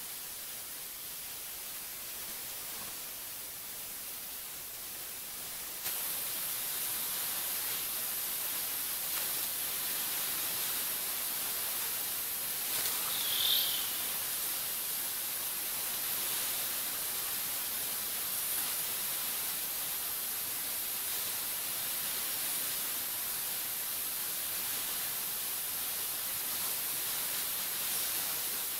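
Steady, even hiss of background noise. It grows slightly louder about six seconds in, and a brief high chirp comes about halfway through.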